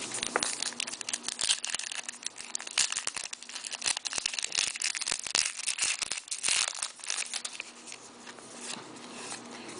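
Crinkling and rustling of a trading-card pack wrapper and cards being handled, a dense crackle that thins out and quietens over the last couple of seconds.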